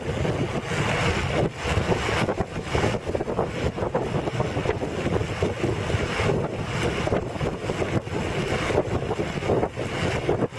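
Wind buffeting the microphone while riding along a road on an open vehicle, a steady rushing noise with uneven low gusts.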